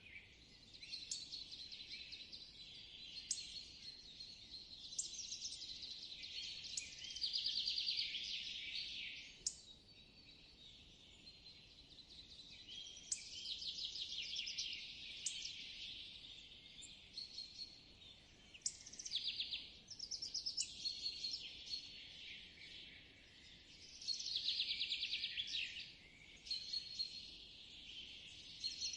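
Forest songbirds singing and chirping, several calls overlapping, with a fast trill of rapidly repeated notes every few seconds over a faint steady background hiss.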